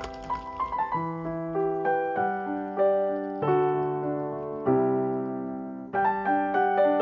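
Background piano music: a gentle melody of single notes and chords that strike and fade, with a quick rising run near the start.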